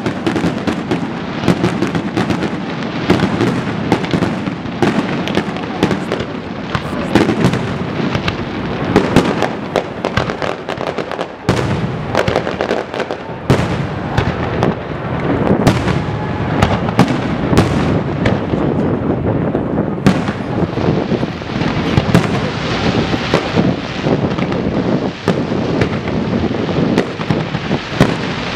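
Aerial fireworks shells bursting in a rapid, continuous barrage: many sharp bangs close together, overlapping with no real pause.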